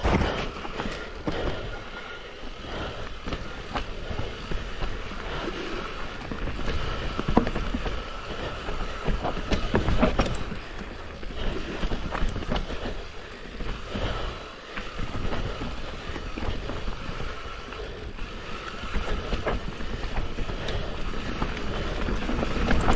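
Mountain bike riding down a loose, rough trail: a continuous rolling, rattling noise from the tyres and bike, with frequent irregular knocks as it hits bumps.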